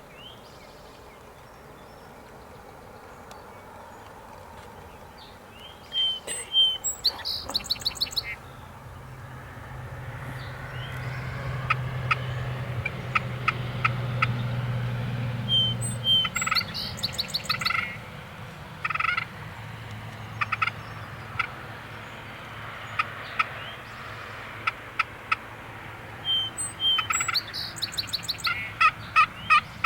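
Wild turkeys calling in spring woods: three loud, rattling gobbles about ten seconds apart, with shorter evenly spaced call notes and songbirds in between. A low drone swells and fades in the middle.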